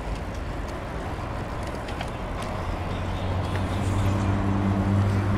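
Steady wind and rolling noise from a bicycle ride, with a motor vehicle's low engine hum growing louder from about three and a half seconds in.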